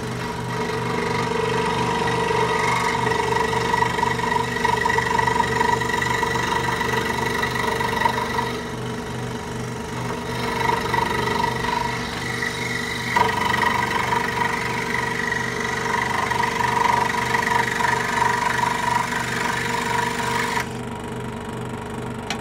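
Axminster AWFS16 16-inch hobby scroll saw running, its blade sawing a curve through a piece of scrap timber. The cutting noise dips twice and stops near the end while the saw keeps running.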